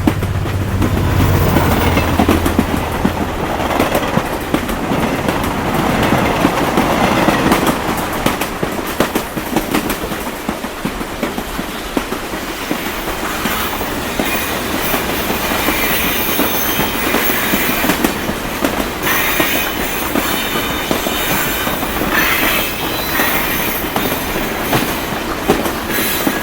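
A train rolling past on the rails, its cars clattering steadily over the track, with a low drone that fades out in the first few seconds. In the second half, high thin wheel squeals ride over the clatter.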